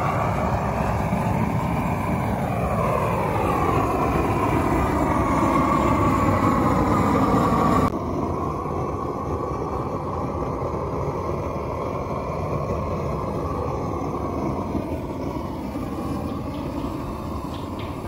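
Propane weed-burner torch flame blasting against a log to char its surface, a steady rushing noise whose tone sweeps slowly up and down as the flame moves over the wood. About eight seconds in the sound drops suddenly a little quieter and carries on.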